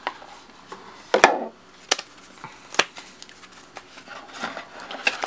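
Cards being taken out of a cardboard card-game box and handled: a few sharp taps and knocks, the loudest about a second in, with the soft rubbing and sliding of a thick stack of playing cards.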